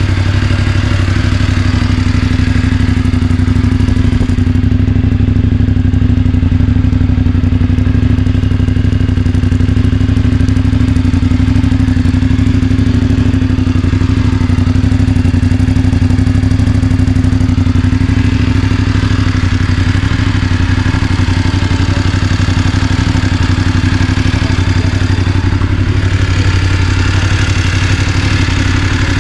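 Voge DS900X's parallel-twin engine idling steadily at a constant pitch.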